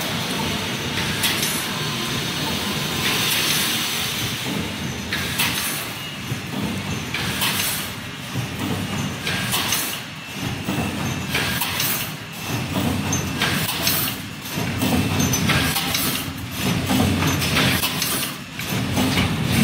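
Wire mesh welding machine running: a steady mechanical rumble broken by repeated short hisses.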